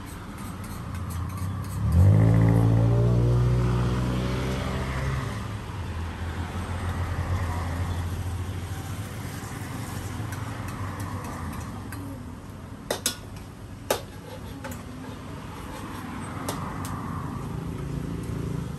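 A motor vehicle passes on the road, starting suddenly about two seconds in as the loudest sound and fading over a few seconds. Underneath is the steady sizzle of food being stir-fried in a wok, with two sharp clinks of the metal spatula against the wok near the middle.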